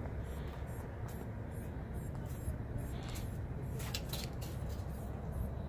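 Steady low outdoor rumble, with a few brief clicks or scrapes about three to four seconds in.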